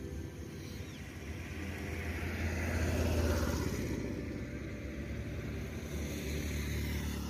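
Road traffic: a vehicle passes, swelling to its loudest about three seconds in and then fading, over a steady low rumble.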